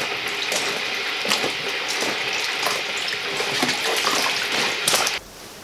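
Water sloshing and splashing in a plastic washing-up bowl as waxed-cotton gaiters are scrubbed and squeezed by rubber-gloved hands. It stops abruptly near the end.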